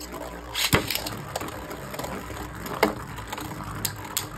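Two Beyblade Burst Odax tops spinning and colliding in the stadium, with sharp clacks as they strike each other and the wall, the loudest a little under a second in and another near three seconds.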